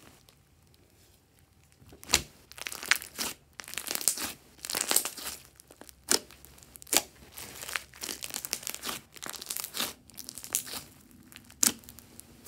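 Thick glossy slime being squeezed and pressed by hand: sticky, crackling squelches with sharp pops as air pockets burst. It starts about two seconds in, after a short quiet spell.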